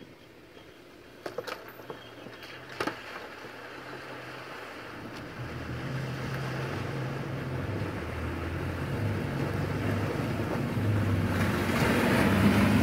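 Toyota LandCruiser four-wheel drive fording a shallow river, its engine growing steadily louder as it approaches. The rush of water splashing off the wheels builds near the end. A few sharp clicks sound in the first three seconds.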